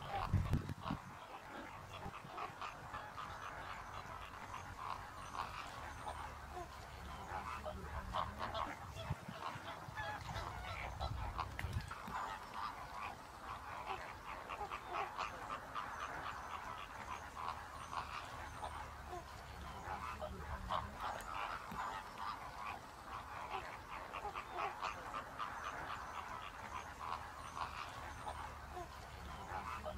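A flock of greater flamingos calling without a break, many short calls overlapping. There is a low rumble about half a second in and again around eleven seconds in.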